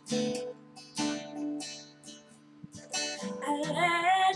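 Acoustic guitar strumming a few slow chords, each left to ring out. Near the end a voice comes in, singing a wavering, sliding note over the guitar.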